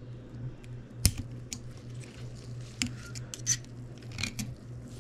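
Small metal clicks and scrapes of a hand tool prying a split ring out of its groove on a Subaru 5-speed manual transmission's main shaft, with irregular ticks and the sharpest click about a second in.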